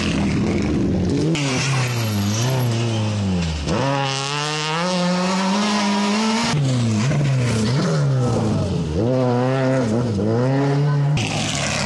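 Rally car engine revving hard on a stage. Its pitch climbs and drops sharply about four times as the driver changes gear and lifts off the throttle.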